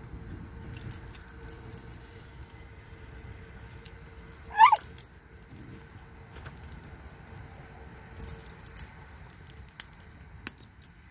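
Metal tags and leash clips on a dog's collar jingling and clicking as the leash is handled and adjusted. A short, loud, high squeak comes about four and a half seconds in.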